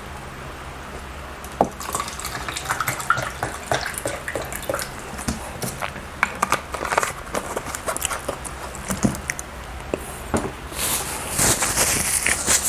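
Close-miked eating sounds: chewing soft bread or cake with wet smacks and clicks of the mouth, irregular and rapid. The sounds grow busier and brighter near the end.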